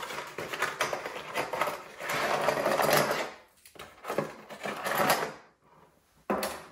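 A cardboard box of toggle bolts being torn open and handled: rustling and rattling, louder about two seconds in and again near four and a half seconds.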